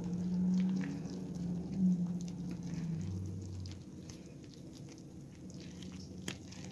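Wire whisk stirring flour into wet banana bread batter in a glass bowl: a soft, wet patter with many small clicks of the whisk against the glass, and one sharper click near the end. A low steady hum runs under the first three seconds.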